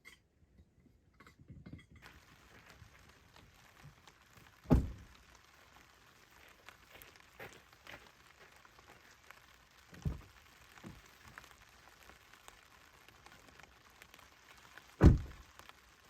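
Scattered dull thuds over a faint steady hiss, with three loud ones about five seconds apart.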